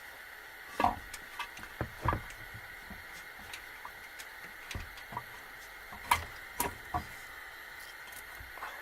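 Scattered knocks and clinks of hand tools and metal engine parts being handled, about a dozen, the loudest about a second in and about six seconds in, over a steady background hiss.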